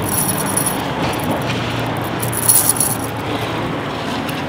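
A heavy gold link chain clinking and jangling as it is turned over in the hands, in two short bursts about two seconds apart, over steady background noise.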